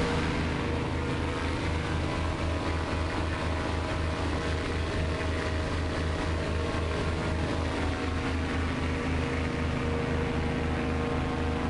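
Hovercraft engine and thrust fan running steadily at cruising speed, heard from on board: a low drone pulsing about four times a second, with a hiss of wind and spray over it.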